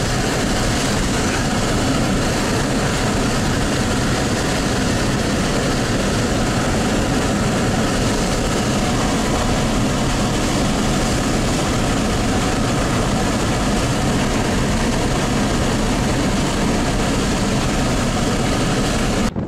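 Strong wind blowing across the microphone: a steady, loud rushing noise with no tone or rhythm.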